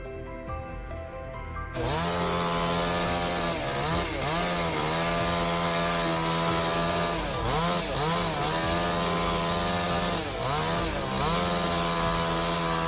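Background music, then, about two seconds in, a chainsaw starts cutting at high revs. Its pitch dips and recovers several times while it cuts. It stops just before the end.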